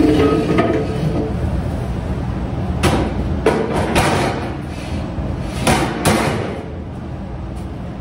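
Stainless steel pots and pans clanking against each other and a wire shelf cart as they are loaded: a ringing clang at the start, then several sharp metal knocks in the middle, over a steady low rumble.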